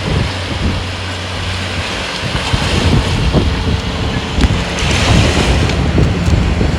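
Wind buffeting the microphone in gusts, over the steady wash of sea waves, with a wave surging in about five seconds in.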